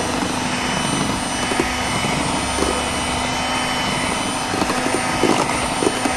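Electric hand mixer running steadily at speed, its twin wire beaters whipping freshly added oil into a thin egg-and-sugar cake batter in a metal bowl.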